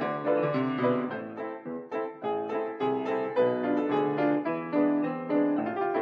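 Grand piano playing a pasodoble, several notes sounding together with a moving melody.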